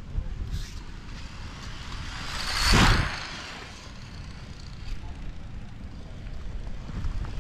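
Wind and road rumble picked up by a camera riding low and fast on an RC car, with a loud whoosh that swells and fades about three seconds in.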